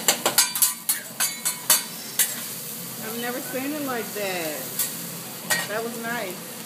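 Rapid metallic clacking of a hibachi chef's spatula on the steel griddle, about six strikes a second, thinning out and stopping about two seconds in. Food sizzling on the hot griddle runs underneath, with faint voices later on.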